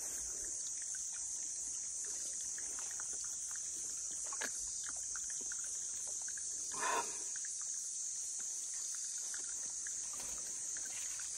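Steady high-pitched drone of insects in forest undergrowth, with faint rustling and ticking of leaves being handled and one short, louder sound about seven seconds in.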